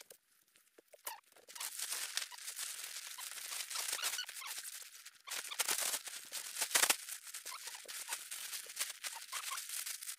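Tent fabric rustling and crinkling as a dome tent is taken down and folded, with small squeaks and clicks throughout and a single knock about seven seconds in. It starts about a second and a half in, after a near-quiet moment.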